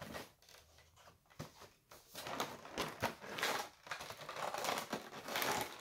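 Cardboard advent calendar box being handled and a door opened on it: scattered light clicks and taps, then irregular rustling and scraping of cardboard and packaging that grows louder in the second half.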